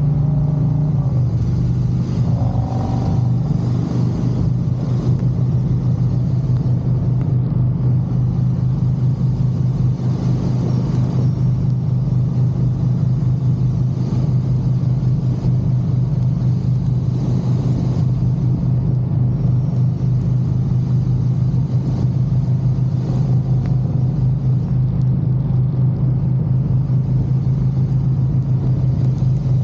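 Harley-Davidson V-twin motorcycle engine running at a steady cruising speed, a constant low drone with a fast pulsing beat. The engine note drops slightly about a second in, then holds steady.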